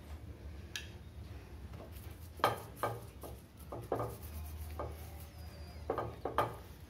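Steel spoon clinking and scraping against a non-stick tawa while spreading ghee over a paratha: a string of short clicks and scrapes, loudest about two and a half seconds in and again near the end.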